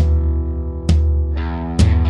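Instrumental background music: a full chord struck about every second and left to ring, over a heavy, steady bass.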